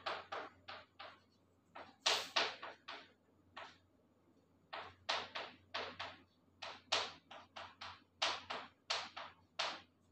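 Chalk writing on a blackboard: quick runs of short, sharp taps and scrapes, one for each stroke, broken by brief pauses.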